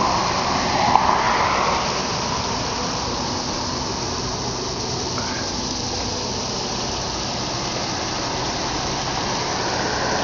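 Steady rushing noise with a faint low hum underneath, even throughout.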